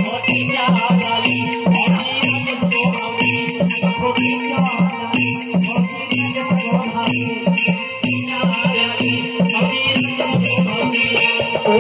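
Live band music for a Bhojpuri stage show: a steady fast drum beat with shaker-like percussion over held tones, instrumental with no singing.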